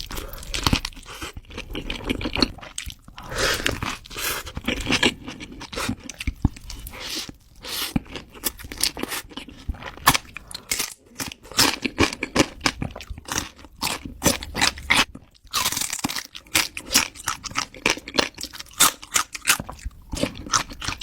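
Close-up eating sounds: crisp taco shells crunching and cracking between the teeth, with chewing, in quick irregular bites throughout.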